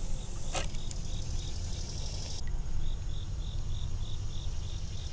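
An insect chirping in an even rhythm, about three short high-pitched pulses a second, over a low steady rumble, with a brief scrape about half a second in.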